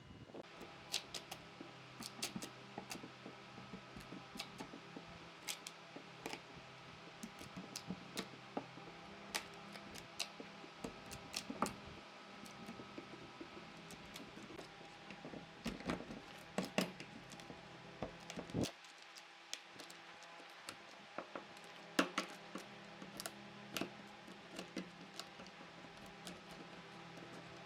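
Scattered, irregular light clicks and taps of tools and wood being handled in a woodworking shop, over a faint steady hum.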